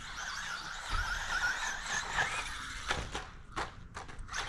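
Brushless electric motor of a Traxxas Bandit RC buggy (Velineon VXL-3s system) whining as the buggy drives, its pitch wavering up and down with the throttle. A few sharp clicks come in the second half.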